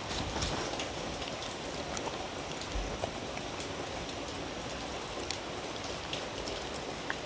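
A dog licking and chewing small bits of food off a woven rug: scattered wet clicks and smacks over a steady hiss.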